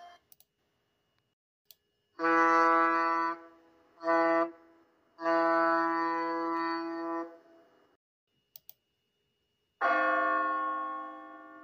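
A ship's horn sounds three blasts, long, short and long. About two and a half seconds later a clock-tower bell strikes once and rings on, slowly fading.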